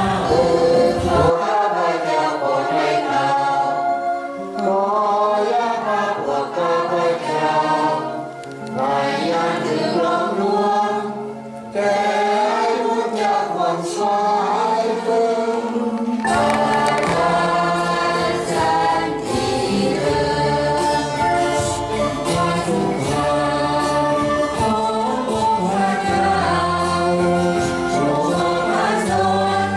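A choir of many voices singing a church hymn. The low bass part drops out soon after the start and comes back in about halfway through.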